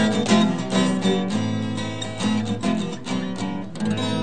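Acoustic guitar strumming chords in the instrumental close of a pop-rock song, the strokes giving way to a chord left ringing near the end.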